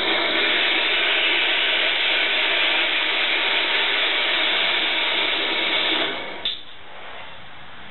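Harbor Freight horizontal/vertical band saw running in horizontal mode, its electric motor and blade making a steady whine while it cuts through a wood block clamped in its vise. Near the end the sound drops away and there is a sharp click.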